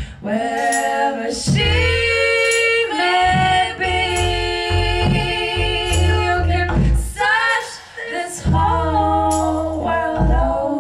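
Women's voices singing live into microphones, holding long notes with vibrato, more than one voice at a time in harmony, with short breaths between phrases.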